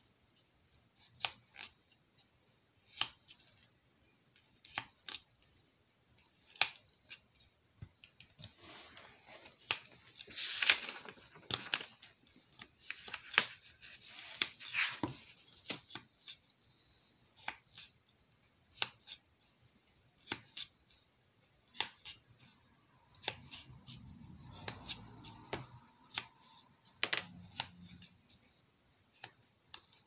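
Pencil point pressed again and again into a small white craft piece to press in brick marks, making irregular sharp clicks and creaks about once a second, with a few longer scratchy scrapes in between.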